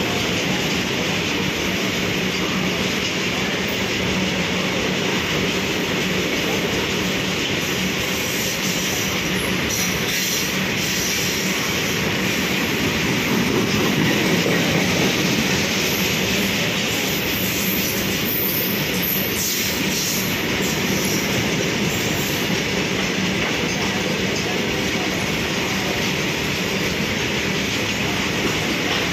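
Long freight train of open-top steel wagons passing at speed: a steady rolling noise of wheels on the rails, a little louder about halfway through.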